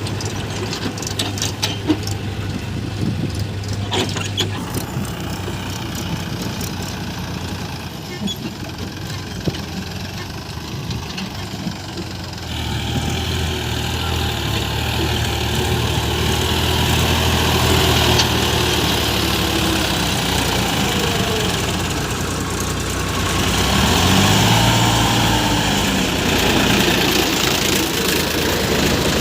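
Diesel engine of a working backhoe loader, running at low revs with a few sharp clicks in the first few seconds, then revving up about twelve seconds in and surging again, pitch sliding, near the end.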